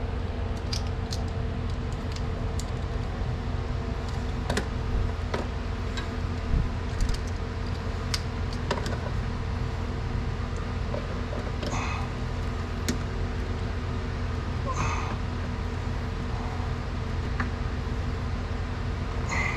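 Scattered light metallic clicks and clinks of pliers working at a hose clamp, over a steady low hum.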